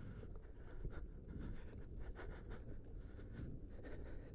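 Low rumble with scattered small crackles and scratches: an Inmotion V10F electric unicycle's tyre rolling along a dirt trail.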